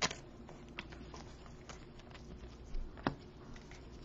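Faint taps and clicks of trading cards and a plastic card sleeve being handled, with one sharper click about three seconds in.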